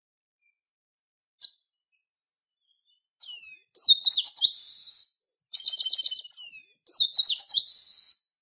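Chestnut-capped blackbird (garibaldi) singing: one short high call about a second and a half in, then, from about three seconds in, three song phrases of fast, repeated high notes that slur downward.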